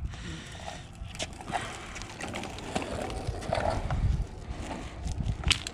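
Scattered irregular knocks and clicks.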